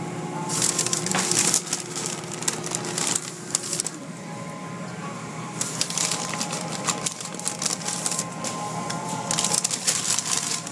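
Automatic car wash heard from inside the car: cloth curtain strips and water spray slapping and hissing against the car's body in three loud spells, over a steady machinery hum.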